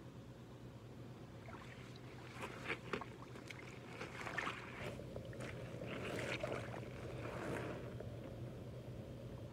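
Thick wet mud squelching and sloshing as rubber boots and knees shift and sink in it: irregular squishes, busiest from about two seconds in until near the end.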